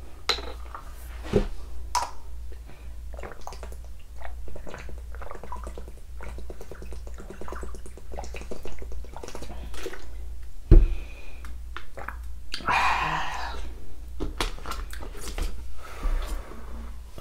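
A person drinking from a plastic water bottle: gulps and the thin plastic crackling and clicking, with a single loud knock about eleven seconds in and a short noisy rush soon after. A steady low hum runs underneath.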